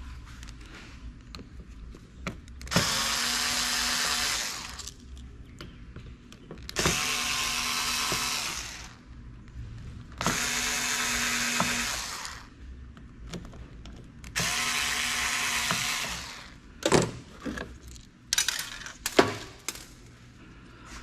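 A cordless power driver runs in four bursts of about two seconds each while taking apart computer parts. A few sharp clicks and knocks of parts being handled follow near the end.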